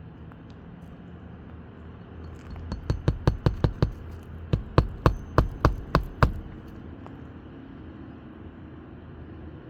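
Hammer driving roofing nails through asphalt shingles: two quick runs of sharp blows, about seven and then about eight, with a short pause between them.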